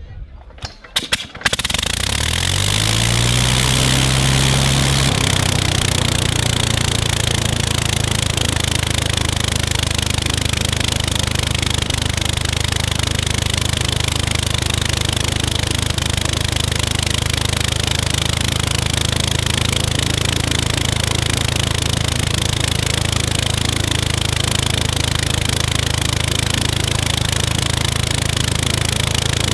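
Seven-cylinder Gnome rotary aero engine hand-started by swinging its wooden propeller: a few sharp firing pops about a second in, then it catches and picks up speed over the next few seconds before settling into a steady, even run.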